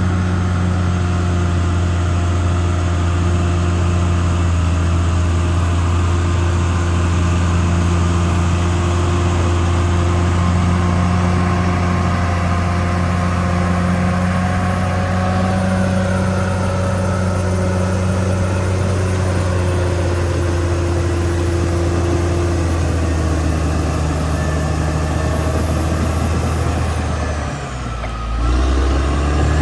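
Caterpillar D6R XL bulldozer's diesel engine running steadily under work. Near the end the engine note drops briefly, then comes back up.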